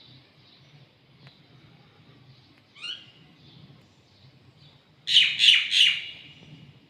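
Small birds chirping: soft, scattered chirps with a louder call about three seconds in, then three loud chirps in quick succession about five seconds in.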